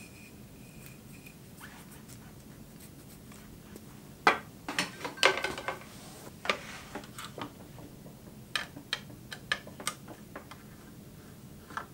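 Tools clattering as they are handled on a worktable, loudest in a cluster of knocks about four seconds in, then scattered small clicks and taps as a screwdriver works at a sewing machine's metal top cover.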